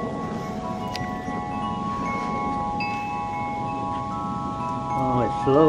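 Wind chimes ringing, several metal tones sounding at different moments and overlapping as they sustain, over a low steady rush of wind.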